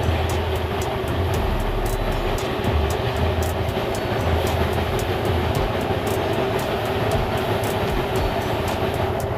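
A machine running steadily: a continuous mechanical drone with an uneven low rumble and faint rapid ticking over it.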